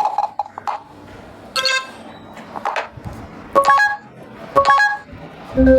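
A series of short electronic phone notification or UI tones from the Micromax Canvas S4, played one after another about once a second, each lasting well under a second; two in the middle sound alike.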